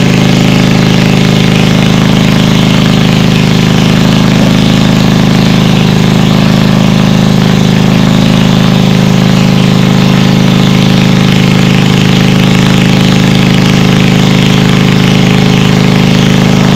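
Engine-driven water pump draining a pond, its engine running at a steady speed with a constant hum.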